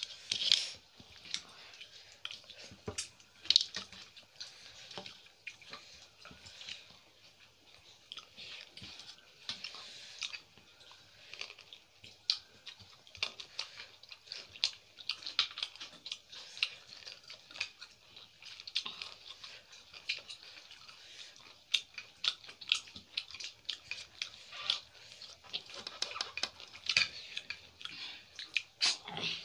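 Eating sounds: chewing and wet lip smacks, with the squelch of fingers mixing rice and chicken curry, in many quick irregular clicks.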